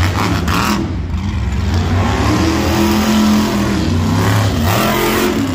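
Monster truck engine running loud and revving, its pitch climbing to a peak about three seconds in and then dropping off.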